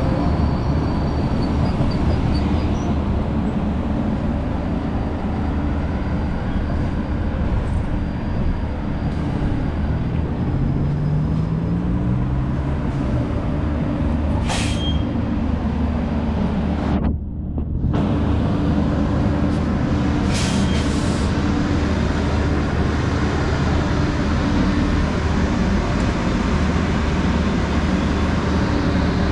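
MBTA Green Line Type 7 light-rail train running past at a street-level stop over a steady low rumble, its motor whine rising as it gathers speed. There are a few short hisses near the middle, typical of a trolley's brake or air system.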